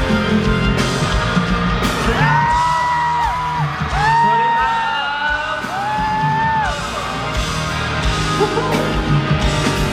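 Live rock band playing a song's intro through a hall PA, with drums, bass and guitar. Three long, high whoops rise over the music at about two, four and six seconds in.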